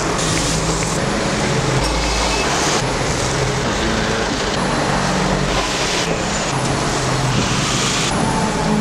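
Red London double-decker buses passing close by in street traffic: a steady, loud mix of engine hum and road noise. The sound changes abruptly every few seconds.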